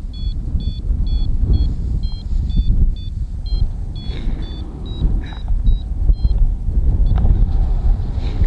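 Flight variometer beeping in short two-pitch beeps about twice a second, signalling climbing air; the beeps stop about six seconds in. Heavy wind buffeting on the microphone runs under it.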